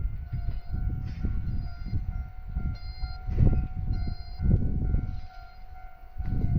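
E231 series 800 train cars being moved slowly by a switcher, rumbling with a heavy clack every half second to second as the wheels cross the rail joints. A level crossing signal rings steadily at the same time.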